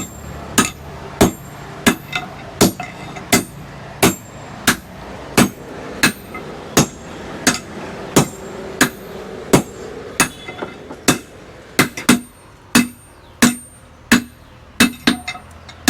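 Two blacksmiths take turns striking red-hot iron on an anvil with hammers, forging it into a blade. Each strike is a sharp, ringing metal blow, about three every two seconds in a steady beat, with a few coming closer together near the end.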